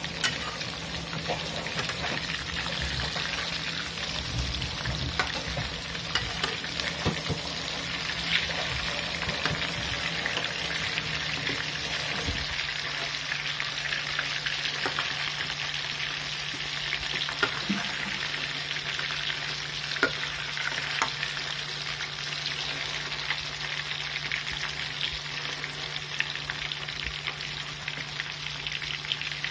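Duck pieces deep-frying in hot oil in a wok: a steady sizzle, with now and then the short scrape or clack of a metal spatula turning the pieces.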